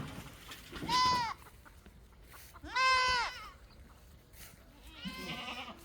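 Goats bleating: two loud, high bleats, each rising then falling, about a second in and about three seconds in.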